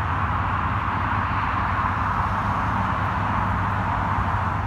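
Steady motorway traffic noise: a constant hiss of tyres with a low rumble underneath.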